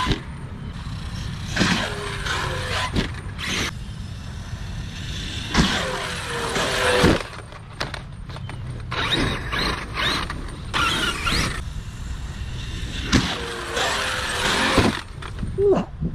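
Arrma 8S RC car's electric brushless motor revving in about four separate bursts of throttle, its whine rising and falling in pitch within each burst.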